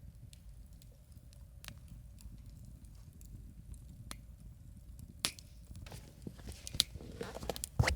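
Wood campfire crackling: scattered small pops and snaps, thickening into a quick run of crackles near the end with one loud snap.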